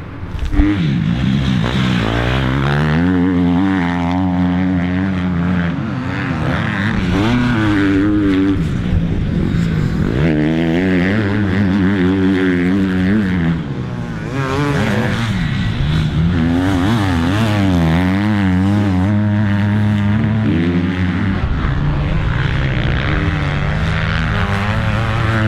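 Motocross bike engine revving hard and shifting as it rides the track, its pitch climbing and dropping back again and again as the rider accelerates, shifts and backs off.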